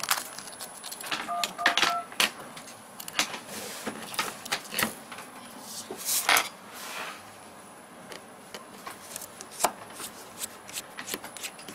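Irregular clicks and taps of small plastic and metal parts being handled during a phone teardown: the plastic housing and metal shield plate knocking and being set down on the desk, and a small screwdriver working at a screw near the end.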